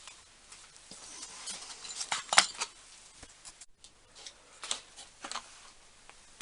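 Small steel collets clicking and clinking as they are handled and set against one another. The taps are uneven, with the sharpest cluster about two and a half seconds in and another near five seconds.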